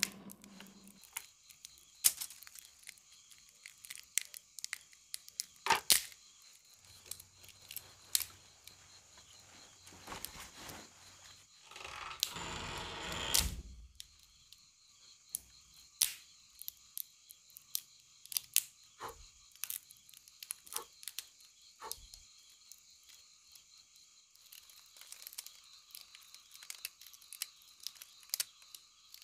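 Wood fire crackling, with irregular sharp pops and snaps over a steady high hum. A brief rushing noise about twelve seconds in.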